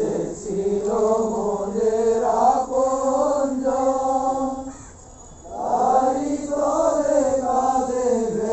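Voices chanting in long held notes that step and glide, in two phrases with a break of about a second in the middle.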